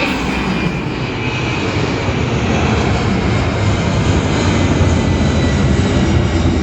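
Airliner's jet engines at takeoff power as the plane climbs away after takeoff: a steady loud roar with a faint high whine, growing slightly louder.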